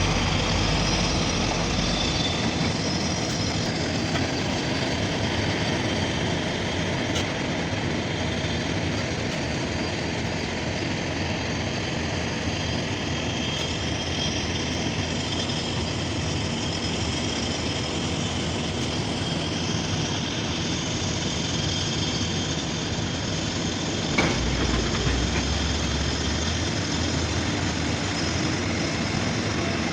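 Diesel engines of heavy earthmoving machinery running steadily under work, a dense mechanical rumble. There is a short knock about three-quarters of the way through, and the low rumble swells briefly after it.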